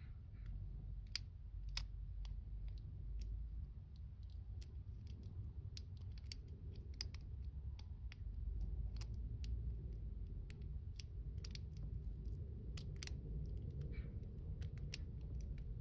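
Small irregular metallic clicks of a lock pick and tension wrench working the pins of a hand-held challenge lock during single-pin picking, over a low rumble of handling noise.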